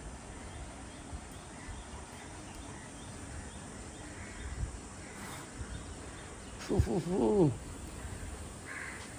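A crow cawing once, about seven seconds in, over a faint steady outdoor background.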